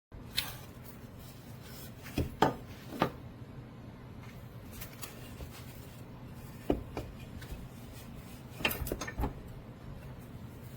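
Scattered knocks and clicks of hard objects being handled and set down, over a steady low hum.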